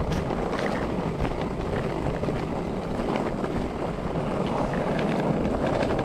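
Skateboard wheels rolling over a rough dirt path: a steady rumble with scattered small clicks and knocks from the uneven ground, along with wind on the microphone.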